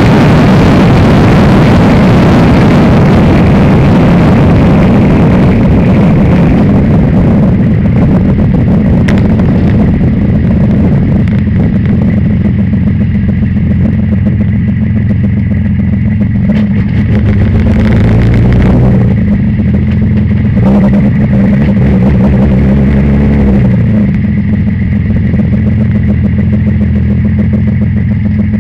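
Onboard sound of a Reynard single-seater racing car: its engine is running loud, with rushing wind. The high-pitched part of the sound fades after about six seconds, and the engine settles to a lower, steadier note. It turns a little quieter from about 24 seconds in.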